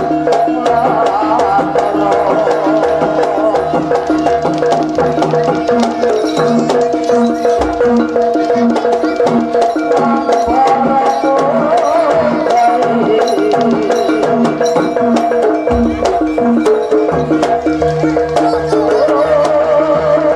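Javanese jaranan dance music: a percussion ensemble with drums and a steady pattern of metal and wooden strokes, under a wavering melody line. Deep low booms come in twice, about a third and three quarters of the way through.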